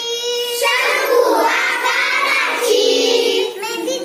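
A group of young girls singing a Marathi children's action song about geometric shapes together, holding long notes.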